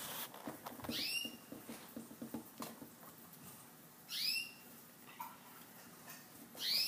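Guinea pigs wheeking: three high, whistling squeals that rise and fall in pitch, about a second in, at about four seconds and near the end, with soft rapid pattering in between.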